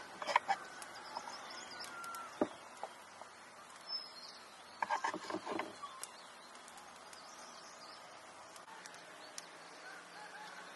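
Light clicks and taps of spice utensils being handled, in a brief cluster at the start and another about five seconds in, with birds chirping faintly in the background.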